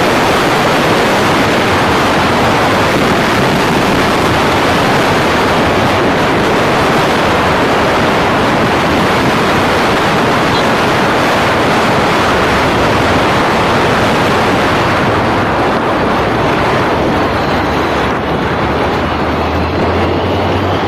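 Steady loud rush of wind and road noise on the microphone of a camera travelling along a road. The hiss thins after about fifteen seconds, and a low hum comes in near the end.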